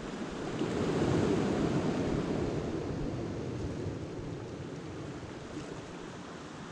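Sea washing onto a pebble beach, swelling about a second in and slowly dying away.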